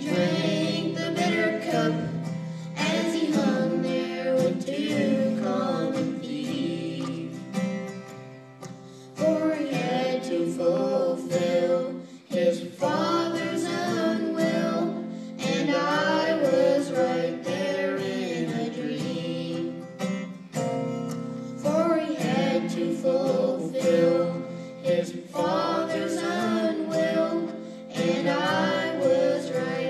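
Young voices singing a song into microphones, accompanied by a strummed acoustic guitar.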